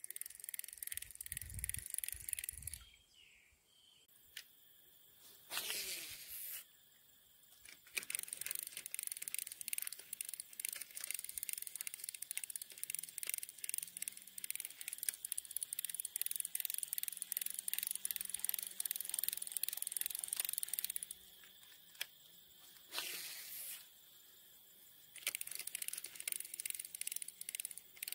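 Fishing reel winding in a lure with a fast, even clicking, broken twice by a cast: a short whizz of line running off the spool, falling in pitch, about six seconds in and again about twenty-three seconds in, each followed after a pause by more reeling.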